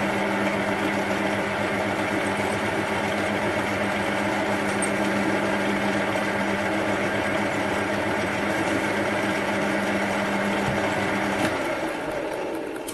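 Metal lathe running with its chuck spinning: a steady motor and gear hum. It is switched off about eleven and a half seconds in and winds down near the end.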